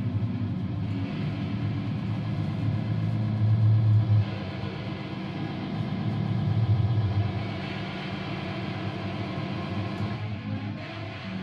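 Guitar noise run through effects pedals: a loud, rumbling low drone with a noisy layer above it. It swells about four seconds in, drops off suddenly just after, and swells again a few seconds later.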